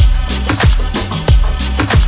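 Overlaid music with a steady dance beat: a strong kick drum with a deep bass line, in a Latin pop style.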